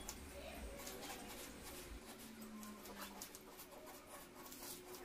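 Near-quiet kitchen room tone: a faint steady hiss with a few soft, scattered ticks.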